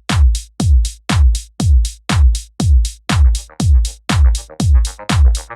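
Background electronic dance music with a steady four-on-the-floor kick drum, about two beats a second, and off-beat hi-hats; a synth layer comes in about halfway through.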